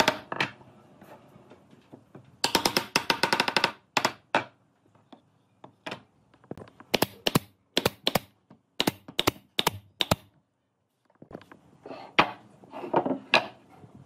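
Nail gun firing into pine boards: a quick string of shots, then a run of single sharp shots about a third to half a second apart. A wooden knock at the start, a block striking the joint to seat it, and softer knocks of wood being handled near the end.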